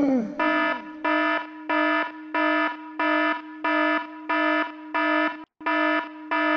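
Electronic alarm beeping: a steady-pitched beep repeating about one and a half times a second, with one brief break near the end.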